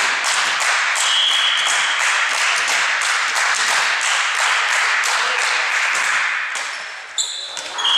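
Many people clapping in a quick, even rhythm, dying down about six seconds in; a short referee's whistle blast near the end.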